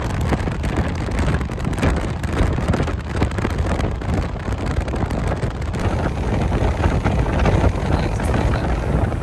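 Wind buffeting the phone's microphone in a moving car, over a steady rumble of road and engine noise.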